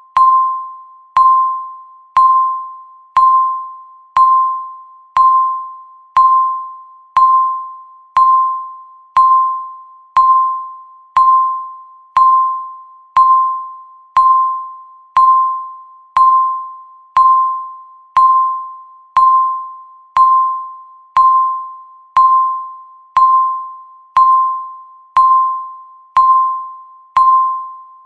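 Countdown timer beeping once a second: a single sharp electronic tone that decays quickly, repeating evenly.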